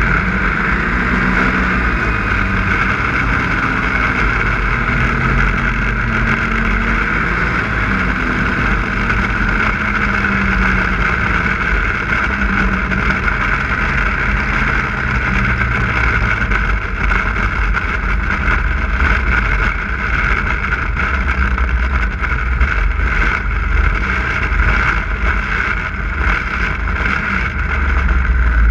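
Snowmobile engine running steadily while the sled travels over snow.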